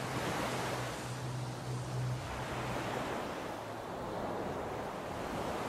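Sea water rushing and splashing along the hull of a sailing catamaran under way, a steady wash with a low steady hum underneath.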